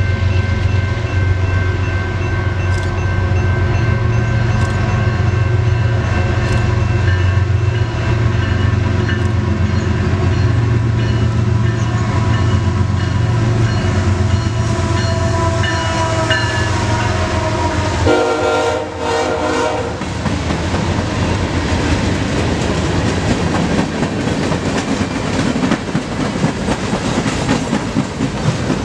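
Diesel freight locomotive passing close by with its engine running and horn sounding. The tones drop in pitch as it goes by, about two-thirds of the way through. After that, loaded freight cars roll past, the wheels clattering over the rail joints.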